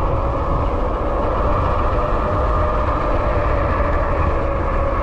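Riding noise from a fat-tire e-bike at steady speed: wind rumbling on the microphone, over a steady hum with one even tone from the fat tires and the QS273 hub motor.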